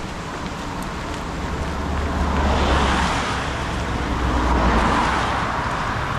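A motor vehicle passing on the road, its tyre and engine noise swelling to a peak about three seconds in and then easing off.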